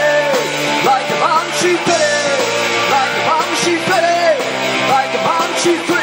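Live funk-rock band playing: a male lead singer sings loudly into a microphone over electric guitars and a drum kit.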